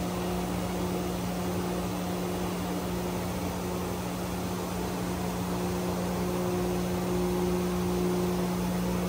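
Steady machine hum from powered shop equipment: one low, constant hum tone under a fan-like hiss, with a fainter higher whine that grows somewhat louder in the second half.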